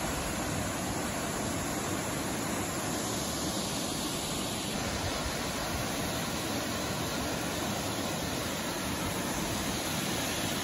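Steady, even rush of Aguasabon Falls, a waterfall pouring down into a rocky gorge.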